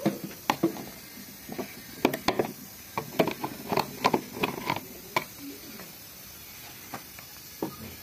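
Irregular clicks and knocks of a screwdriver and hands working on the plastic motor housing and guard of an Arno desk fan while it is cleaned. They come thick and fast for the first five seconds, then only a few more.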